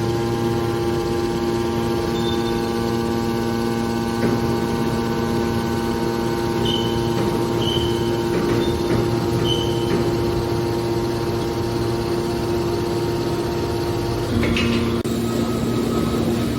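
Hydraulic metal scrap baler running: a steady hum from its motor and hydraulic pump, with a few faint short high squeaks in the middle. Its note changes about three-quarters of the way through.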